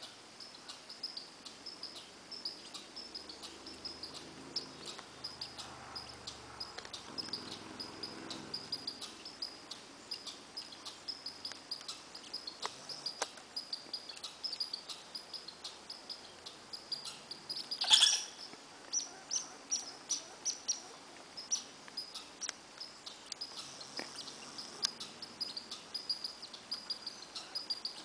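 High, short chirps from a small animal, repeated a few times a second without a break. One sharp click stands out past the middle, and a faint low drone comes and goes in the first third.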